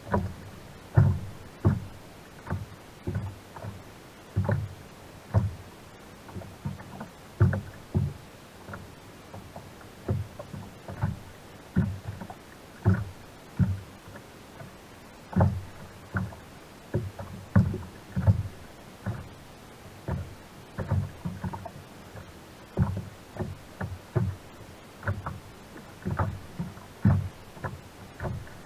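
Small waves slapping against the plastic hull of a sit-on-top kayak, heard as irregular low thumps, one or two a second, through a camera mounted on the kayak.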